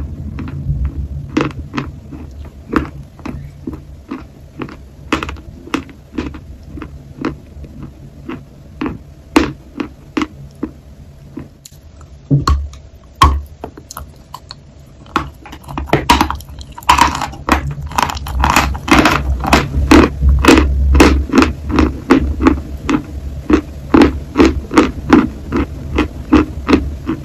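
Dry chalk being bitten and chewed: sharp crackly crunches, sparse at first, then coming thick and loud from a little past halfway.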